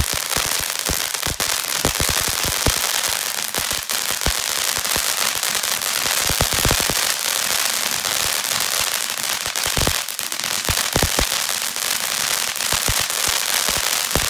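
Ground fountain firework spraying sparks: a steady loud hiss with many sharp, irregular crackling pops.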